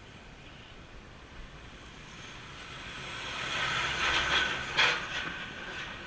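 A vehicle passes by, swelling to a peak with a low engine hum and a sharp hissing spike, then fading away.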